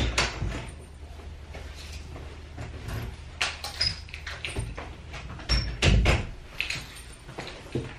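Interior door with a knob being opened, then pushed shut with a couple of low thuds about six seconds in. Scattered clicks and knocks of the latch and of someone moving about come before it.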